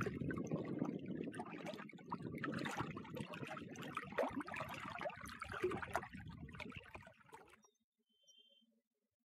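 Small lake waves lapping and splashing against the shore, a busy watery patter that cuts off abruptly about seven and a half seconds in.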